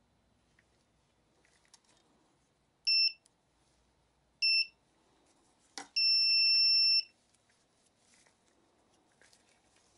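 Electronic beeps from a portable 18650 spot welder's control board: two short beeps about a second and a half apart, a sharp click, then one longer beep of about a second, all on the same high pitch.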